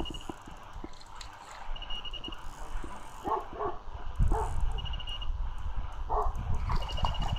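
A dog barking and yipping in short calls, a few times between about three and six and a half seconds in, over a low rumble. A short high trill repeats about every second and a half.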